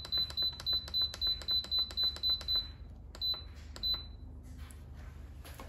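Instant Pot control panel beeping once for each button press as the pressure-cook time is stepped down, about three short high beeps a second. The beeps break off, two more follow, and then they stop about four seconds in.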